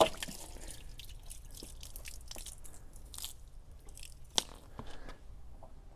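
A garden hose being unhooked from a mower deck's washout port and handled: scattered small clicks, scrapes and crackles, with one sharp click about four seconds in.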